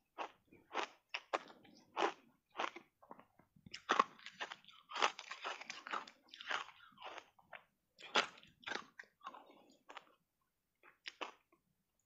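Close-up crunching and chewing of dry block ice coated in matcha powder: a rapid, irregular series of crisp crunches, thinning out to a short pause near the end before a few more crunches.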